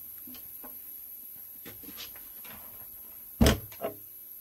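Wooden coffin-top sewing machine cover being handled, with faint small knocks and then two wooden knocks near the end, the first one loud.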